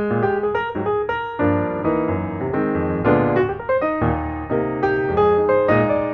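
Background piano music: a steady run of separate notes, several to the second.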